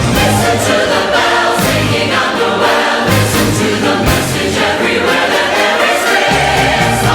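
Large choir singing with orchestral accompaniment in a Christmas medley.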